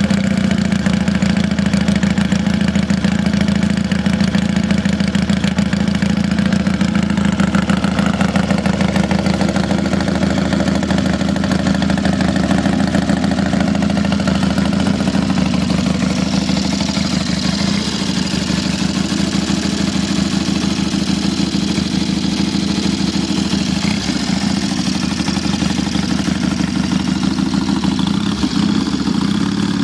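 1973 Triumph T100R Daytona's 500 cc parallel-twin engine idling steadily after a cold start with the choke off, its firing pulses even.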